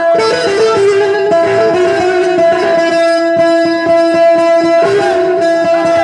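Amplified Kurdish tembûr, a long-necked plucked lute, playing an improvised melody over a steady held drone, heard through a PA system.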